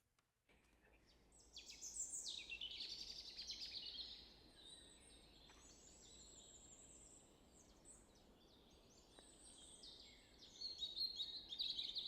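Recorded birdsong of song thrushes and European robins, many quick chirps and trills overlapping over a faint low hiss of wind. It cuts in suddenly about half a second in and is busiest about two seconds in and again near the end.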